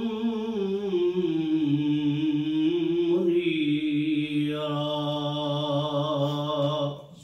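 A man's voice chanting Arabic in a slow melodic style, drawing one word out over several long held notes that bend up and down, then breaking off about seven seconds in.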